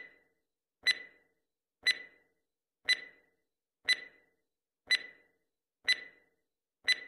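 Countdown-timer stopwatch ticking sound effect: a sharp clock tick about once a second, each with a brief ring.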